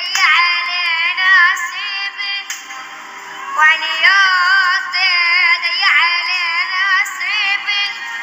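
A high-pitched voice singing a song, its held notes wavering in pitch, with a softer stretch about three seconds in.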